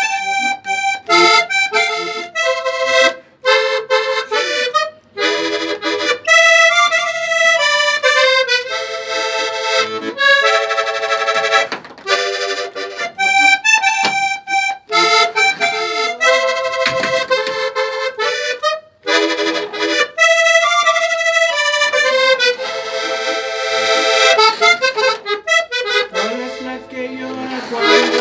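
Three-row diatonic button accordion tuned C–F–B♭ playing a song's melody in A minor, in phrases broken by a few short pauses.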